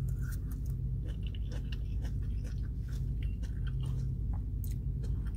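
A person chewing a mouthful of food close to the microphone, with many small wet mouth clicks, over a steady low hum.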